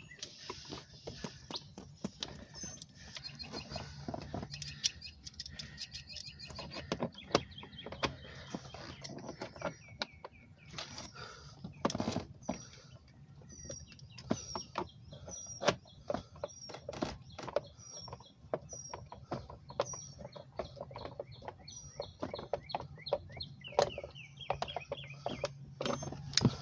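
Irregular small clicks and knocks of screws being driven in to secure a plastic steering column cowl, with a bird chirping over and over in the background.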